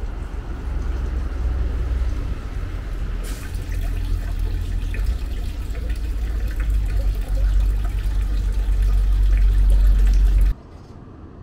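Rushing, splashing water over a deep rumble, growing louder, with a hissier layer joining about three seconds in; it cuts off abruptly near the end.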